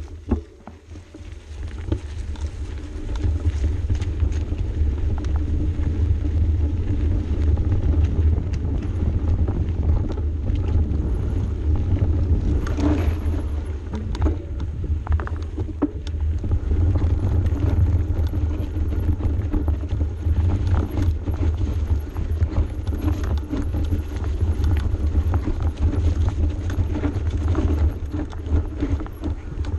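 Mountain bike riding down a dirt single track: knobby tyres running over dirt and the bike rattling and clicking over bumps, under a steady low wind rumble on the microphone. The noise picks up about two seconds in as the ride gets going.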